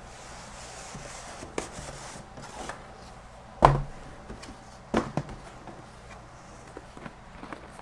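Cardboard motherboard boxes handled on a wooden tabletop: light rustling and scraping, a loud dull thud about three and a half seconds in as a box is set down, then two sharper knocks about a second later.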